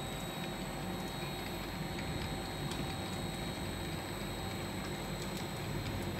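Tablet and capsule inspection machine running: the roller conveyor and its drive give a steady hum with a few faint, irregular ticks.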